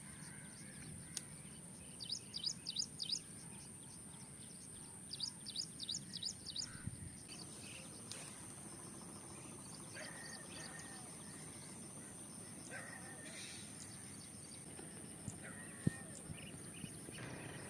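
A bird calling in quick bursts of about six high chirps, twice in the first seven seconds, over a steady high-pitched whine. Fainter short calls follow later, and there is a single sharp click near the end.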